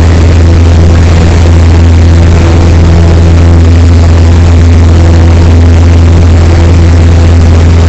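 Cessna 152's Lycoming O-235 four-cylinder engine and propeller at full takeoff power, heard from inside the cockpit: a loud, steady drone through the takeoff roll and liftoff.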